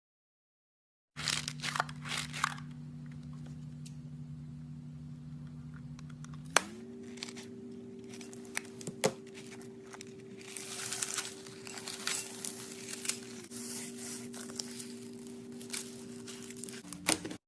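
Crackling, crinkling and tearing of a slime-filled stress ball being cut open, with sharp clicks and a denser crinkly stretch after about ten seconds, over a steady low hum that steps up in pitch partway through.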